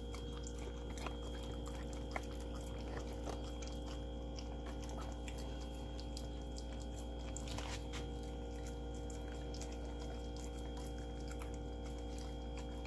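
Dogs licking and chewing peanut butter off spoons: a run of small wet smacks and clicks over a steady background hum.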